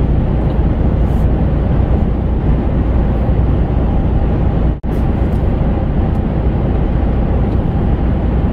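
Truck cab interior on the move: a steady rumble of engine and road noise, heavy in the low end, which drops out for an instant about halfway through.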